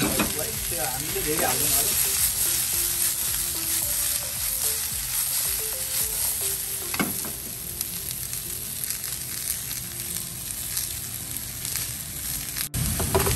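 Vegetables sizzling in oil in a nonstick frying pan as they are stir-fried and tossed. A few short knocks come near the start and about seven seconds in.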